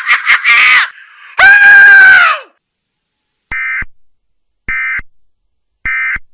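A cartoon voice's rapid laughter breaks off. About a second and a half in comes a loud scream that falls away at the end. Then three short, identical Emergency Alert System data bursts, about a second apart, of the brief end-of-message kind.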